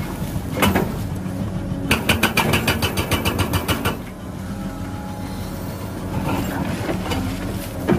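Hydraulic rock breaker on a Caterpillar excavator hammering rock in a rapid run of blows for about two seconds, from about two seconds in. The excavator's diesel engine runs steadily underneath.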